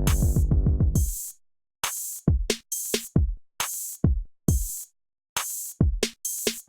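Electronic intro music: a drum-machine beat with deep falling bass kicks and crisp hi-hat-like hits, a sustained synth chord dropping out about a second in, leaving a stop-start beat with brief silences.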